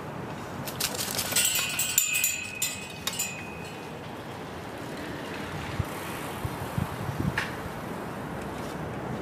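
Metallic clinking and a short high squeal lasting about two seconds, starting about a second in, over a steady street background; a few soft knocks follow later.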